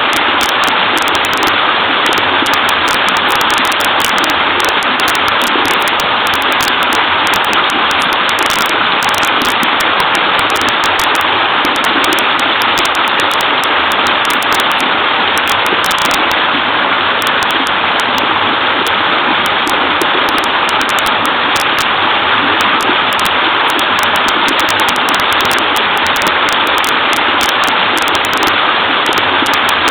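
Small waterfall on a stream, clear water falling and babbling in a steady, unbroken rush.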